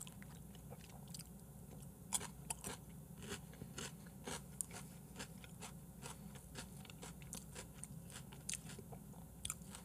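Faint chewing: a person eating with chopsticks, with soft mouth clicks and small taps scattered irregularly.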